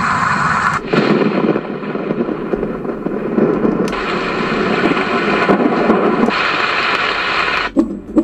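Roffie N500 white noise machine playing its built-in noise sounds through its speaker: a steady hiss that switches abruptly about a second in to a deeper, storm-like noise, then back to brighter hiss around four and six seconds. Near the end it drops briefly and a rhythmic pulsing sound begins.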